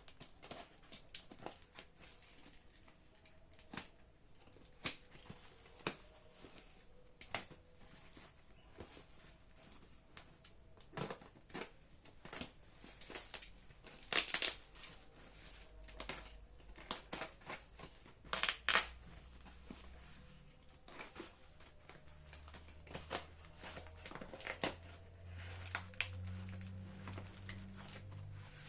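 A parcel's plastic packaging being handled and torn open: irregular crinkling, tearing and clicking, with two louder rips or crunches about midway. A low hum comes in during the last third.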